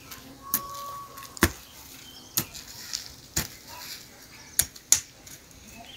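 Sharp, short knocks at uneven spacing, about one a second, the loudest about one and a half seconds and five seconds in.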